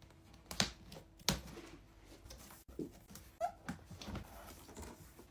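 Cardboard box and packaging of a robot vacuum being opened and handled: several sharp knocks and scrapes a second or so apart, with light rustling between and a brief squeak near the middle.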